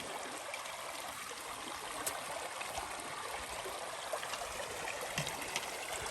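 Small moorland brook running over stones, a steady trickling rush of water.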